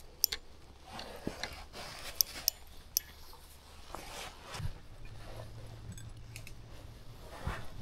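Footsteps through grass and brush, with several sharp cracks and snaps underfoot in the first few seconds. A low steady hum comes in during the second half.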